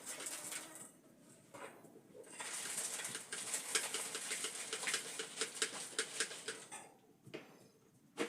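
Domestic chickens making soft, low clucking calls, with a dense run of quick clicks and rustling from about two seconds in until near the end.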